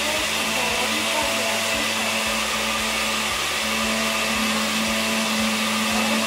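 Countertop electric blender running at a steady speed, a constant motor hum with an even whirr over it.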